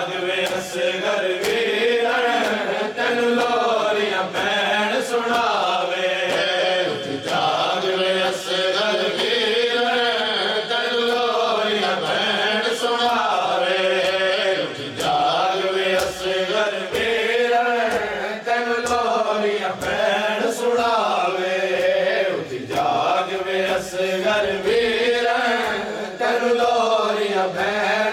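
Male voices chanting a noha, a Shia lament: a lead reciter sings a repeating mournful phrase into a microphone and a group of men sings along, to the sound of sharp hand slaps on the chest (matam) every second or two.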